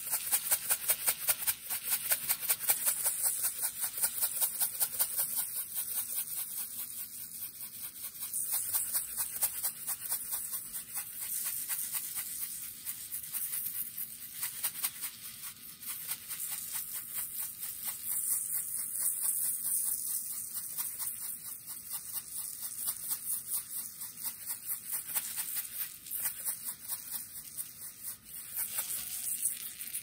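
Salt shaken from a plastic salt container onto glue-lined paper: a fast, rhythmic rattling hiss of grains, several shakes a second, going on with small pauses.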